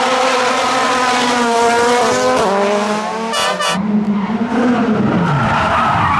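Rally car engines revving hard as two cars drift in tandem through a hairpin, pitch rising and falling, with tyre squeal. About four seconds in, a single rally car engine takes over, its pitch dropping and then climbing.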